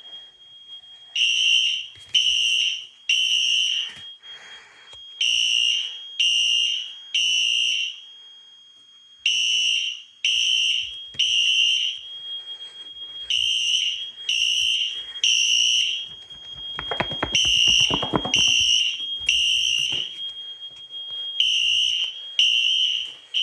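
Fire alarm horns sounding the temporal-three evacuation pattern: three high beeps, then a pause, repeating about every four seconds, with a faint steady high tone underneath. This is the system in alarm. A brief low rattle joins the beeps about two-thirds of the way through.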